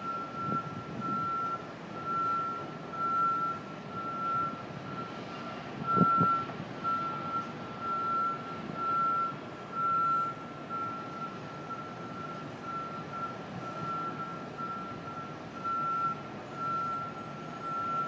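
A construction machine's warning alarm beeping at a building site, one high, steady-pitched beep about every second, carrying across to nearby residential buildings. A single sharp knock from the site sounds about six seconds in, over a low city hum.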